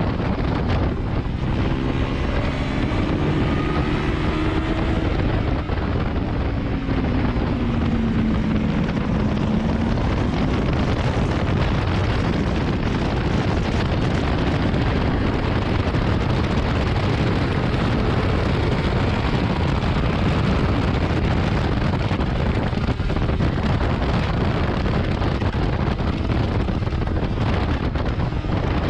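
A 2019 Yamaha R6 inline-four sportbike engine running at speed on track, under heavy wind rush on the camera microphone. The engine note drops in pitch over roughly the first ten seconds as the bike slows through a corner, then is largely buried under the steady wind noise.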